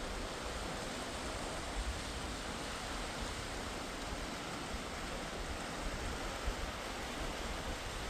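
Steady rushing of a mountain river's flowing water.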